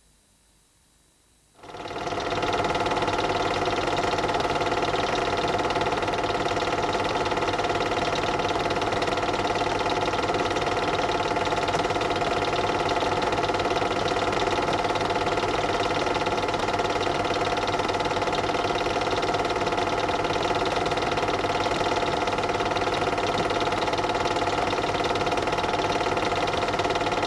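Film projector running: a steady mechanical whirr and fine rattle that starts suddenly about a second and a half in and holds level throughout.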